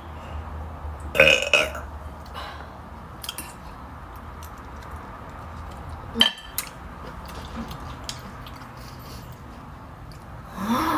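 A person burps loudly about a second in. A sharp click follows about six seconds in, and a shorter vocal sound rising in pitch comes near the end, over a low steady hum.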